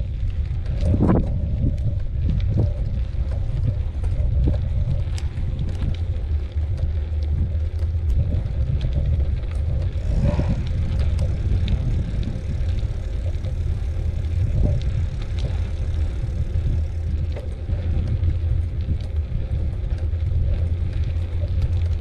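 Riding a bicycle: a steady low rumble of wind on the microphone and tyres rolling over the trail, with scattered small rattles and clicks from the bike.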